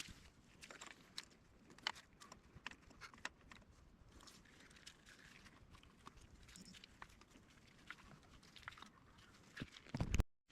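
Faint, scattered small clicks and taps of hands handling parts and connectors on the engine, with a few louder knocks near the end before the sound cuts off suddenly.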